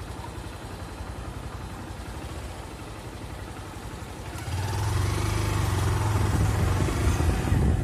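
Vehicle engine running at low speed, then growing louder from about four and a half seconds in as it pulls away, with a steady low hum.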